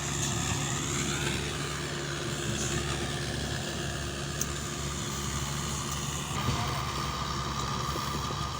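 An engine running steadily at an even speed, a higher whine joining about six seconds in.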